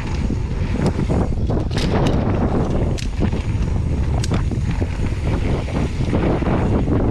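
Wind buffeting the microphone of a camera on a moving mountain bike, over the rumble of the knobby tyres rolling on a dirt trail, with a few sharp clicks and rattles from the bike.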